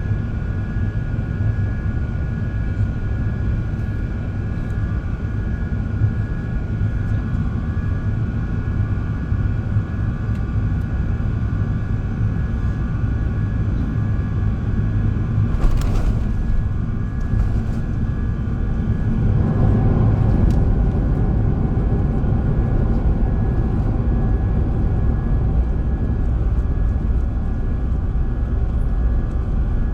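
Airliner cabin noise: the jet engines and airflow give a steady low rumble with a steady whine over it. There is a click about halfway through, and the rumble grows louder a few seconds later.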